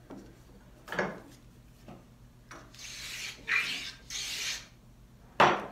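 Two short, hissing strokes of a hand tool shaving or rubbing along the edge of a walnut board, trimming a slight taper for a fit. A few light knocks of wood on the bench come before them, and a sharp knock near the end.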